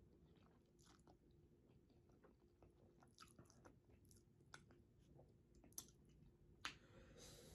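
Faint chewing and small mouth clicks of a person eating spicy instant noodles, with a brief breathy noise near the end.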